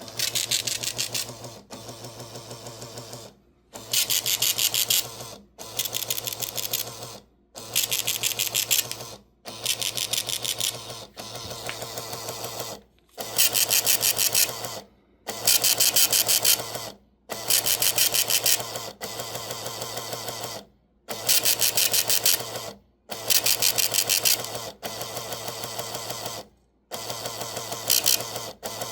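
Rapid mechanical clicking in repeated bursts, each about a second and a half long with short gaps between them, about fifteen in a row, alternately louder and softer.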